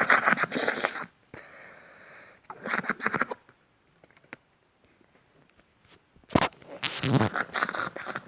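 Homemade foamy slime of shower gel, shaving foam and shampoo crackling and popping as its bubbles burst, in three bursts of many small pops: at the start, about three seconds in, and again from about six seconds in.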